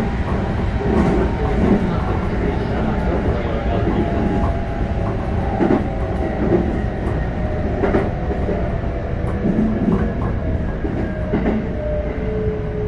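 Interior running sound of a Keikyu 600 series EMU with Mitsubishi GTO-VVVF (1C4M) control: a steady rumble under the inverter and traction-motor tones, which slowly fall in pitch as the train slows. A strong falling tone comes in near the end. The wheels clack over rail joints now and then.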